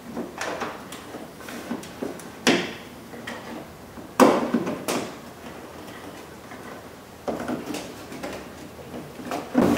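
Scattered plastic clicks and knocks as a fog light and its retaining clip are handled and pushed back into a 2003 Ford Focus's plastic front bumper and lower grille, the sharpest knock about four seconds in.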